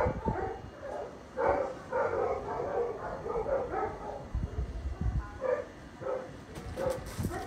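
Dog barking repeatedly: a quick run of barks, about three a second, then single barks spaced further apart near the end.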